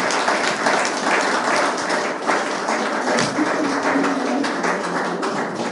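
Audience applauding, a steady spread of many hands clapping.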